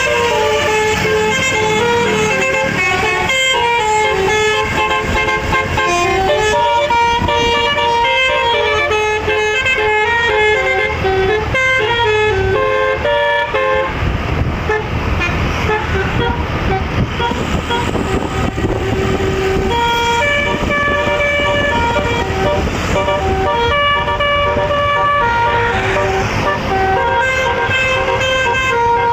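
A bus's six-note telolet air horn playing a tune of held notes that step up and down in pitch, over the bus's engine and road noise. About halfway through the horn falls back for several seconds, leaving mostly engine and road noise, then plays again.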